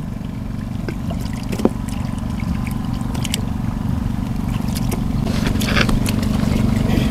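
A small engine running steadily at an even speed, with water splashing and trickling over it and a single sharp knock about one and a half seconds in.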